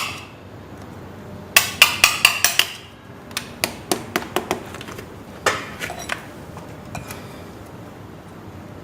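Sharp metallic taps of a tool knocking winding wire down into the slots of a DC motor armature during rewinding. They come in three quick runs of several taps each, with the last falling quiet well before the end.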